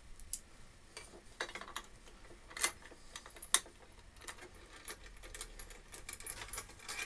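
Small metallic clicks and clinks of steel bolts and lock washers being handled and fitted under a bench drill's cast table, scattered and irregular, with a couple of sharper clicks in the middle.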